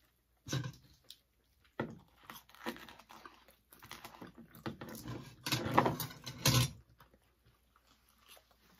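Eating sounds close to the microphone: irregular bursts of chewing and mouth noise as spaghetti and bread are eaten, loudest for about a second a little past the middle, then dying away near the end.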